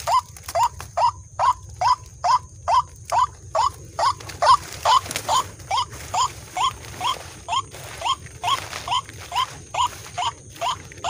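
White-breasted waterhen (ruak-ruak) call, a short rising note repeated about twice a second at a very even beat, played from an MP3 lure to draw waterhens in.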